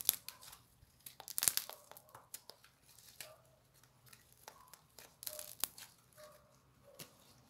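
Slime being squeezed and pulled apart in the hand, giving sticky, wet crackling and clicking pops. The pops come in a thick cluster about a second and a half in and again a little after five seconds.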